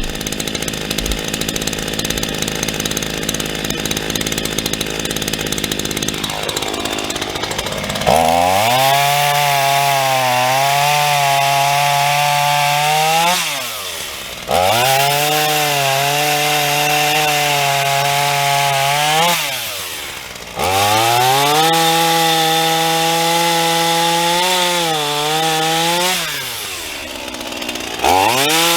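Black Max 16-inch 38cc two-stroke chainsaw running steadily, then revved up and cutting through logs in three passes of about five seconds each. The engine pitch wavers under load during each cut and drops back between cuts. A fourth rev-up starts near the end.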